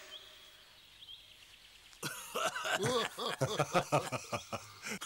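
Faint quiet at first, then from about two seconds in an indistinct voice mumbling in short, quick syllables with no clear words.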